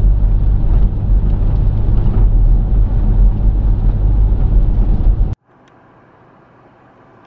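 Loud wind buffeting and road rumble on an outside, hood-mounted camera as a Toyota FJ Cruiser drives along a gravel road, heaviest in the deep low end. About five seconds in it cuts off suddenly to a faint, steady hiss.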